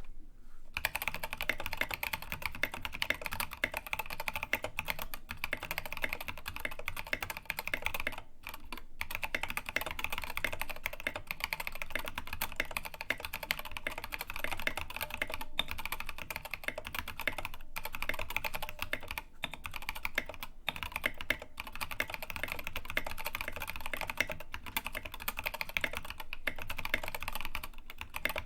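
Continuous fast typing on a Rama Works U80-a Seq2 mechanical keyboard with stock Gateron KS-3 Yellow linear switches, a brass plate and MAXKEY KA keycaps: a dense stream of keystroke clacks starting just under a second in, with a few brief pauses.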